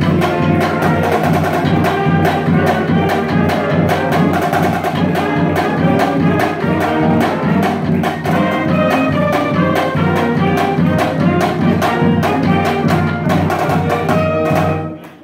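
High school marching band playing: clarinets, saxophones and trumpets over a strong low brass bass line and a steady drum beat. The music stops abruptly near the end.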